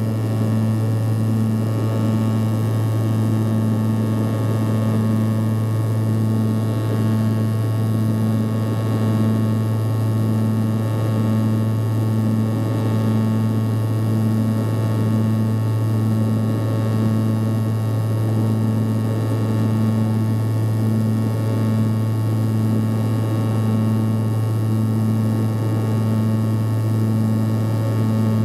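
Antonov An-140's twin turboprops and propellers heard inside the cabin: a loud, steady low drone with a second, higher tone that swells and fades about once a second, over an even rushing hiss.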